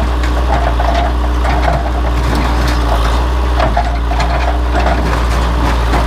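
Case 580 backhoe's diesel engine running steadily under load, with irregular creaks and clanks of metal as it tears apart an old stake-body truck.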